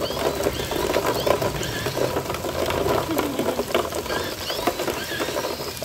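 Radio-controlled scale crawler trucks, a Traxxas TRX-4 High Trail pickup and a Redcat Gen8, driving through a muddy puddle: water splashing and churning with a busy patter of small clicks as the tyres throw spray, to wash the mud off the trucks.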